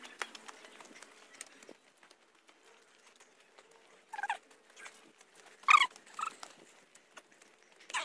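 Footsteps scuffing and tapping up uneven stone steps. Three short animal calls come about four and six seconds in, and they are the loudest sounds.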